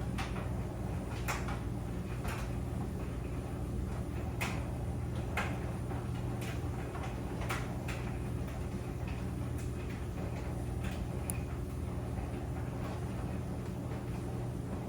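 Clothes dryer running: a steady low hum from the motor and turning drum, with irregular light knocks, roughly one a second, as the tumbling load strikes the drum.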